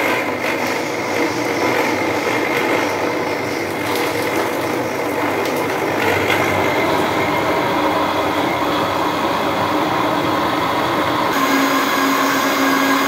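Electric countertop blender running steadily, its motor whirring as it purées chopped peaches and soda in the plastic jug. Its tone shifts slightly near the end.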